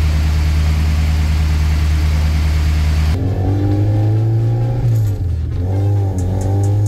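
Honda H23A-swapped Civic's four-cylinder engine heard from inside the cabin, pulling hard with the revs climbing, dropping at a gear change about five seconds in, then climbing again. For the first three seconds before it there is a steady low drone.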